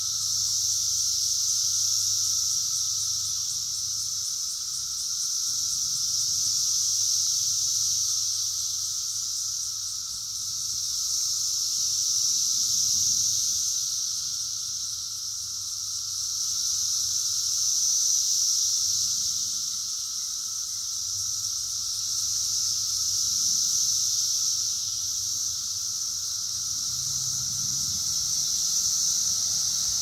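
Chorus of 17-year periodical cicadas: a dense, continuous high-pitched buzzing with a lower droning band beneath it, swelling and fading together in slow waves about every five or six seconds. It is loud.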